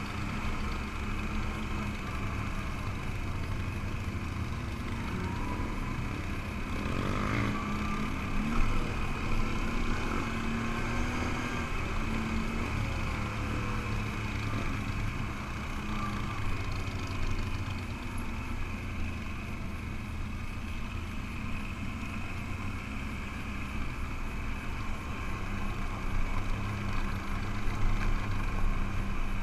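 Can-Am ATV engine running steadily while being ridden along a dirt trail, the level swelling a little now and then, with a brief thump about eight and a half seconds in.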